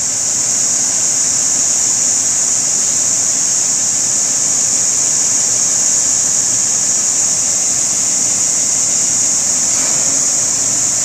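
A 50-tonne truck crane's engine runs steadily with a faint low hum, under a loud, steady, high-pitched hiss.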